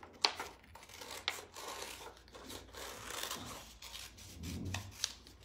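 Scissors cutting through a sheet of brown paper, with sharp snips and the paper rustling and crinkling as it is turned.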